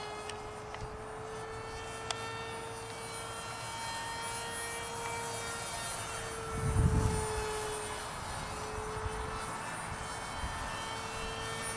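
RC parkjet model of a Boeing ALCM cruise missile in flight, its electric motor and propeller giving a steady, slightly wavering whine. A brief low rumble comes about seven seconds in as the plane passes close overhead.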